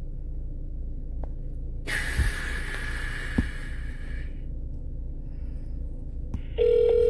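Phone call on speakerphone between voicemail attempts: a low steady line hum, a burst of hiss for about two seconds starting two seconds in, and a short electronic beep near the end.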